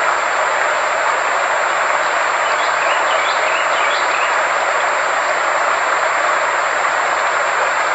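Synthetic sound-therapy track: a steady, even rushing noise centred in the mid range, with a constant thin high-pitched tone over it. A few faint chirps are heard about three to four seconds in.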